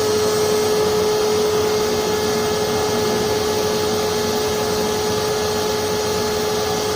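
Forced-air propane forge burner running steadily: the blower motor's constant hum with the rush of air and burning gas.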